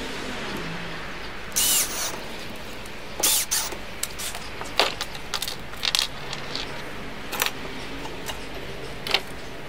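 A cordless drill-driver runs briefly about a second and a half in, driving a hinge screw into the door panel, followed by a scatter of sharp clicks and knocks as tools are handled and set down on the board.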